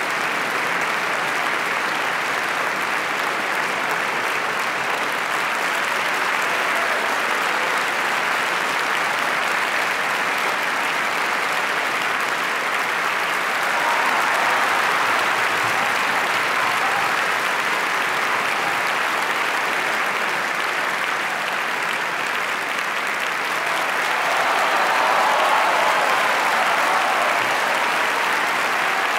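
Theatre audience applauding steadily. It swells a little louder about halfway through and again near the end.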